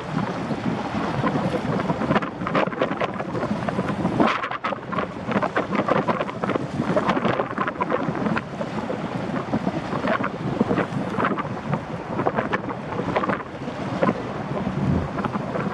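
Wind buffeting the microphone in irregular gusts, over the steady rushing noise of a Boeing Jetfoil 929 hydrofoil ferry, a gas-turbine waterjet craft, running foilborne at speed.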